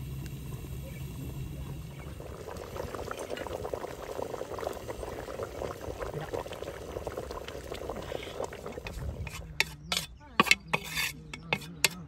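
Hot steamed couscous being tipped and rubbed by hand into a glazed clay dish, a soft continuous crackling rustle of loose grains. In the last few seconds there are several sharp knocks and clicks.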